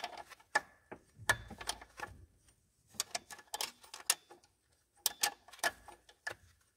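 Irregular sharp metallic clicks and clinks, in quick clusters with short pauses, from pliers gripping a nut on a small Lombardini engine as the engine is turned over by hand. The engine is being turned to check a freshly fitted timing belt's tension.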